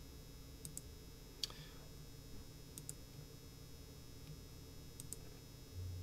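Faint computer mouse clicks: a few light paired ticks and one sharper click about a second and a half in, over a faint low steady hum.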